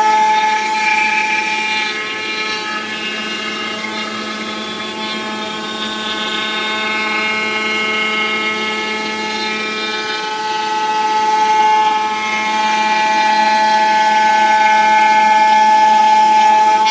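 CNC foam cutting machine running as it cuts EVA foam, a steady high-pitched whine with several fixed tones that eases off in the middle and grows louder again in the last few seconds.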